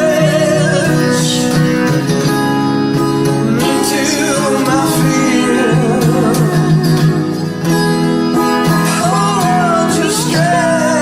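A live duet song: voices singing a melody over guitar accompaniment.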